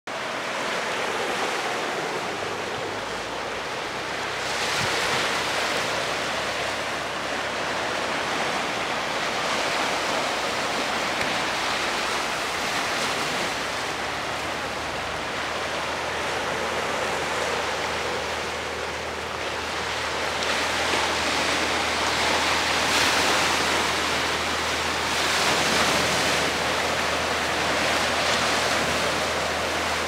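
Ocean surf breaking on rocks and washing into a rocky tide pool: a continuous rushing wash that swells louder every few seconds as each wave comes in.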